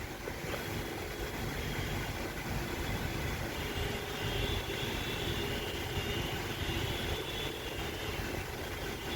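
Steady mechanical hum of a small motor with a faint high whine, starting about half a second in.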